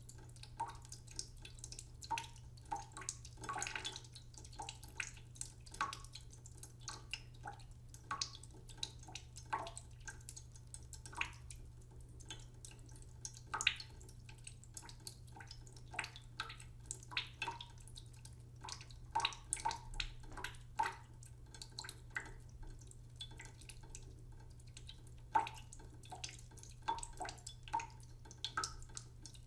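Water dripping: irregular single drops, a few each second, each a short plink as it lands in water, over a steady low hum.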